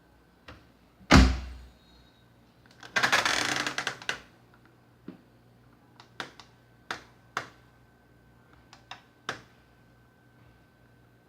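Enxuta washing machine's mechanism during its cycle: one heavy thunk about a second in, a short rush lasting about a second, then a run of scattered sharp clicks, over a faint steady hum.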